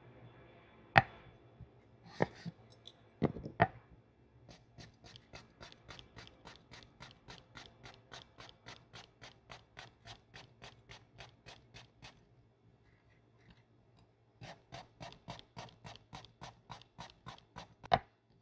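Kitchen knife cutting a shiro-uri (white melon) on a wooden cutting board. A few sharp knocks come first, then a long run of quick, even cuts about four a second. After a short pause there is a second run, and a loud knock of the blade on the board near the end.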